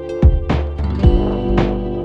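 Instrumental relaxation music: deep bass hits under held chord tones, with plucked notes on top.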